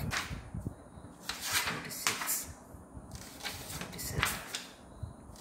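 A4 paper sheets being handled, giving a run of short rustling swishes, the strongest about a second and a half in, at two seconds and near four seconds.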